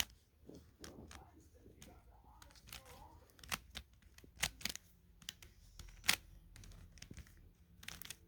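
Plastic puzzle cube being turned by hand: a string of irregular, sharp clicks and snaps as the layers are turned.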